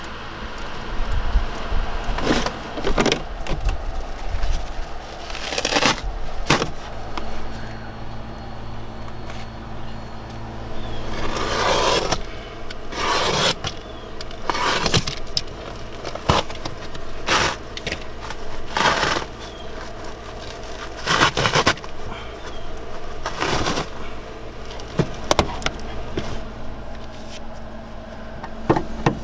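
Repeated scraping strokes of a hand scraper and tools on a car's bare metal floor pan and seat mounts, one every second or two, some in quick clusters, over a faint steady hum.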